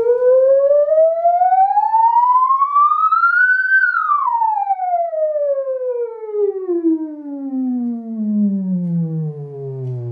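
A bare Focal Chorus 726S 6.5-inch Polyglass speaker driver playing a sine-tone sweep in a free-air test. The tone rises steadily to a high pitch about four seconds in, then glides back down to a low tone, with fainter overtones above it.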